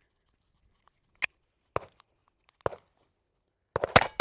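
Glock 44 .22 LR pistol firing: three single shots spaced about half a second to a second apart, then a rapid string of shots begins near the end.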